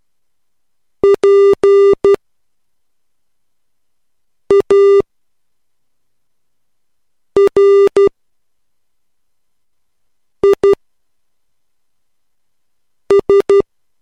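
Morse code practice tone at 3 words per minute: a single buzzy beep keyed into dots and dashes, sent one letter at a time. Five letters come in short clusters, roughly one every three seconds, with silence between them.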